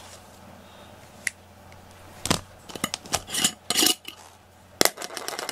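Scattered sharp clicks and light clattering of small hard objects being handled, most of them bunched together between about two and four seconds in.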